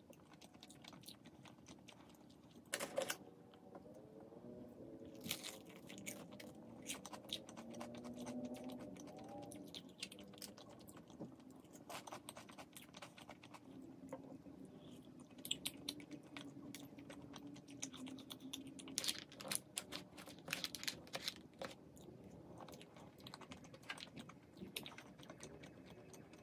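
Faint eating sounds: chewing and crunching, with many scattered sharp clicks.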